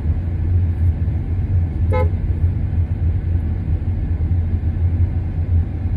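Steady low rumble of a car driving slowly, heard from inside the cabin, with one brief high beep about two seconds in.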